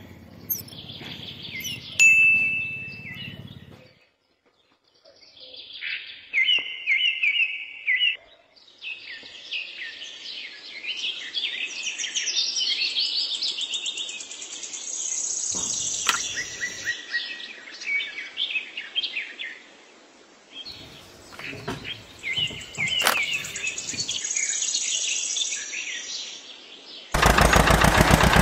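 Birds chirping and singing, many short high calls one after another. Near the end a loud, rapid mechanical rattle starts suddenly.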